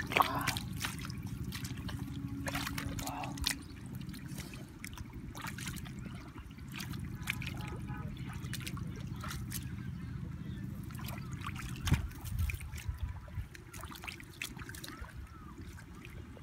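Hands groping and splashing in shallow muddy water, with small irregular sloshes, splashes and trickles, over a steady low background noise; a louder knock about twelve seconds in.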